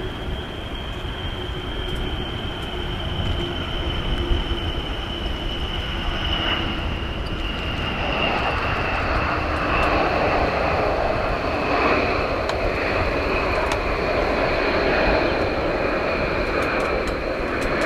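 Rockwell B-1B Lancer's four General Electric F101 afterburning turbofans on the take-off roll. A high jet whine slowly falls in pitch over a steady low rumble, and the engine noise grows louder and rougher from about halfway through.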